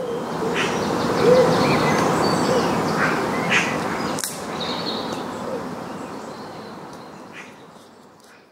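Outdoor ambience: a steady rushing background with birds chirping now and then. A sharp click sounds about four seconds in, and the whole fades out gradually toward the end.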